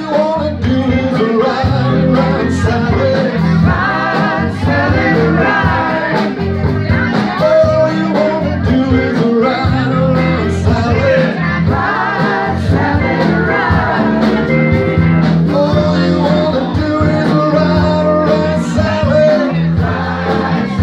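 Live blues-rock band playing in a bar: a lead singer over amplified guitar, bass and drums, with no break in the music.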